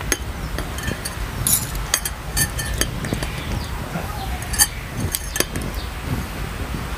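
Metal knife and fork clinking and scraping against a ceramic bowl while cutting through a jumbo bakso meatball: irregular sharp clinks, about two a second.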